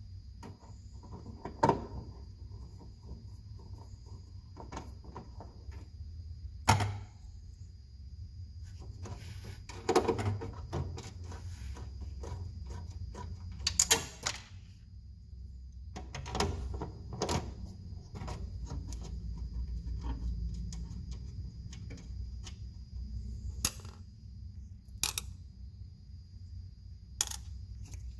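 Scattered sharp clicks and knocks, the loudest about a quarter of the way in and near the middle, over a steady low hum and a faint high-pitched whine.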